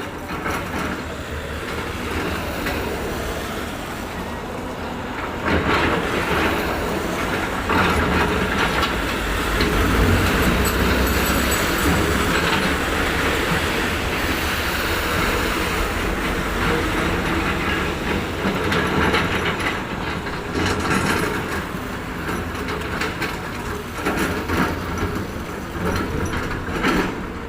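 Heavy road-construction machinery running, with continuous clanking and rattling over a low rumble, loudest about a third of the way in.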